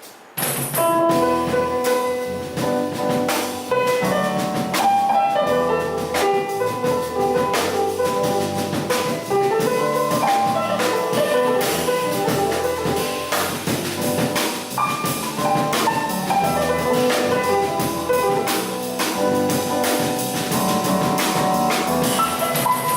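Jazz piano trio playing over a steady drum groove: the piano improvises a melody restricted to the five notes of the A minor pentatonic scale (E, G, A, B, D) over A minor chords, starting about half a second in.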